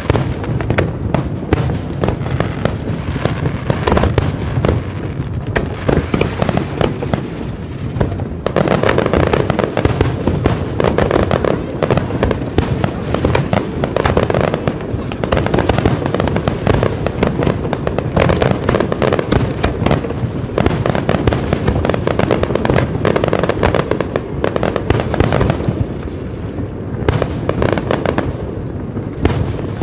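Aerial fireworks display: a dense, unbroken barrage of shell bursts and crackling, heaviest through the middle.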